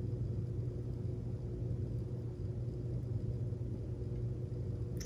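Steady low hum with faint background noise and no distinct sound events: room tone.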